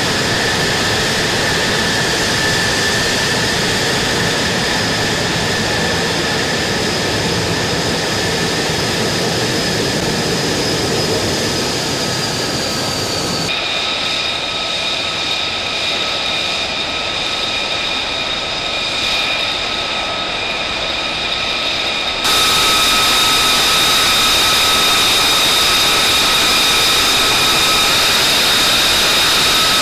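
F-35 Lightning II fighter jet engine running: a steady rush with high whining tones. The sound changes abruptly about 13 seconds in and again about 22 seconds in, when the whine shifts pitch and the sound gets louder.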